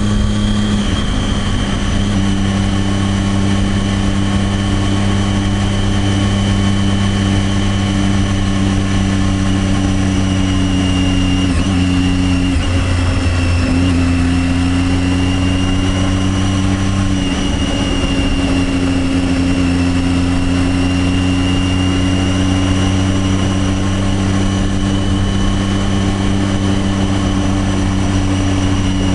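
Triumph Daytona 675R's 675 cc three-cylinder engine running at a fairly steady speed, its pitch shifting briefly about twelve seconds in and again a few seconds later.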